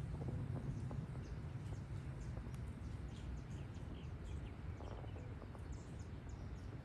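Outdoor ambience: a steady low rumble with many faint, short high chirps scattered throughout, like small birds calling.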